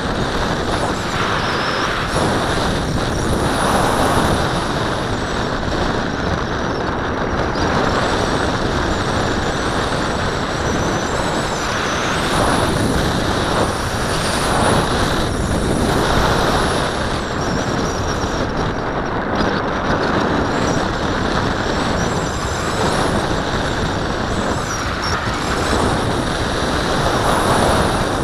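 Steady rush of air over a Tracer model glider in flight, heard as wind noise on its onboard camera's microphone, swelling and easing every few seconds. Faint high, wavering whines sit above the rush.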